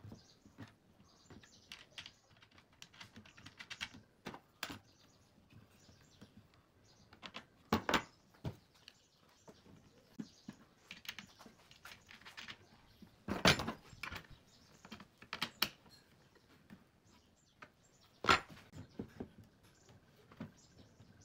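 Wooden slats of a bolted pallet-wood folding chair frame clicking and knocking against each other and pivoting on their bolts as the frame is folded and opened by hand. Light clatter throughout, with a few sharper wooden knocks spread through it.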